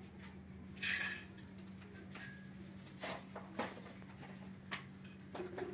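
Workshop room tone: a steady low hum with a few faint scattered knocks and clicks, the loudest about a second in.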